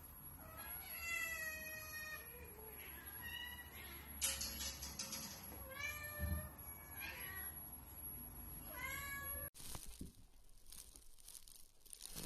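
A cat meowing about five times, the first meow long with its pitch bending up and down, the later ones shorter. Near the end the sound cuts abruptly to faint rustling and clicks.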